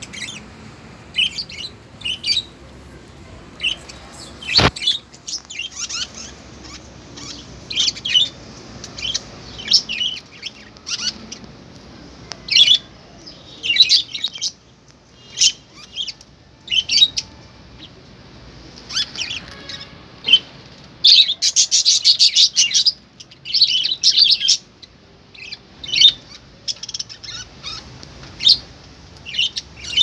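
A flock of caged budgerigars chirping and chattering in short, high-pitched calls, with a run of rapid, dense chatter about three-quarters of the way through. A single sharp knock is heard about four and a half seconds in.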